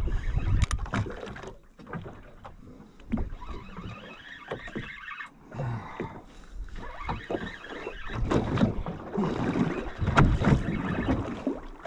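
Uneven water and hull noise aboard a small fishing boat, with scattered knocks, swelling louder again near the end.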